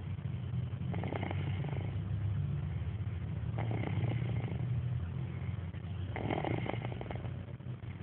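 A sleeping toddler snoring: three snores about two and a half seconds apart, over a steady low rumble.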